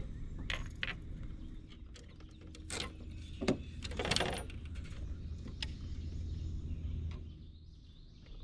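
Mechanical clicks and rattles of fishing tackle, typical of a reel being worked, over a steady low hum.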